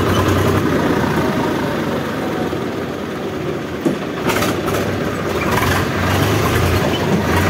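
Tractor engine running steadily as the tractor moves slowly, a continuous low drone with one sharp click about four seconds in. The engine is making an odd noise that the rider likens to an HMT tractor.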